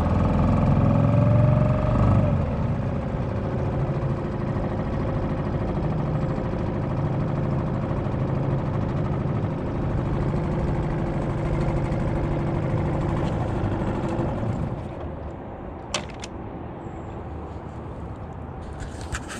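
Suzuki DF2.5 single-cylinder four-stroke outboard running, easing off about two seconds in, then running steadily before going much quieter about fifteen seconds in. A sharp click sounds shortly after.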